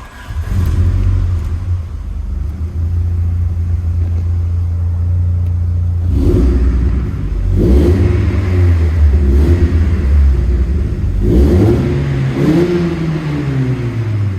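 VW Corrado 16V's four-cylinder engine starting up and idling, then blipped about four times, its pitch rising and falling with each rev. The throttle is being tested after the throttle cable was secured to the pedal with cable ties.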